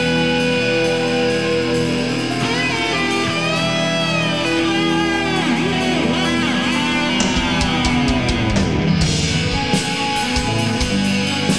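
Heavy metal instrumental passage: electric guitar lead with bending notes over held chords, ending in a long falling dive, with drums and cymbals coming in about seven seconds in.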